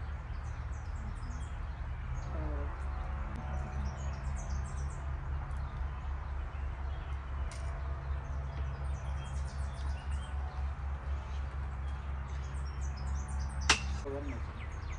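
Small birds chirping in short scattered bursts over a steady low hum, with one sharp click about three-quarters of a second before the end.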